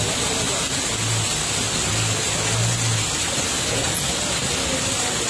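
Heavy rain falling: a steady hiss.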